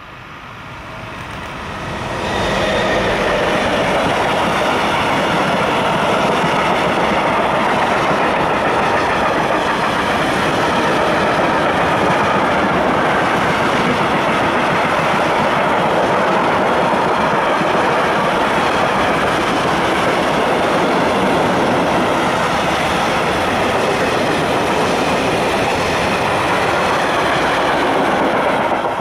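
Freight train of tank wagons and covered wagons rolling past at speed behind a DB electric locomotive: the noise of steel wheels on the rails builds over the first two seconds, then holds loud and steady as the long train of wagons goes by.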